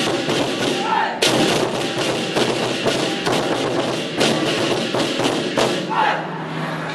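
Lion dance drum ensemble: several large barrel drums beaten together with clashing hand cymbals, a dense continuous din of hits and cymbal wash, with a hard accented stroke about a second in.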